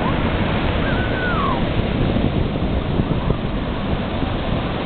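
Ocean surf breaking and washing up the beach: a steady, loud rush of wave noise. About a second in there is a brief high-pitched gliding call.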